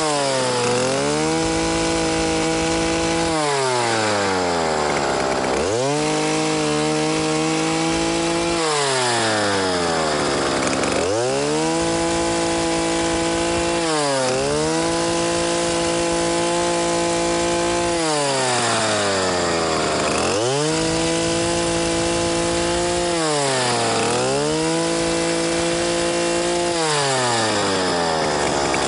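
Large two-stroke gasoline chainsaw, a cheap Chinese copy of a Stihl, revving up and down over and over. The engine note falls, holds low for a second or two, then climbs again, about every three seconds.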